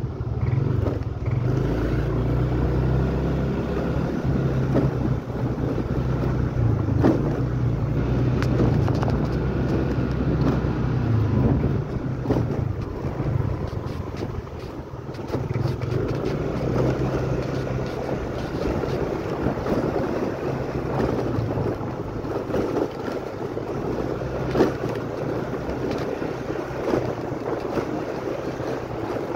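Small motorcycle engine running at low riding speed, with wind buffeting the microphone. Its note eases off and the sound dips briefly about halfway through, then picks up again.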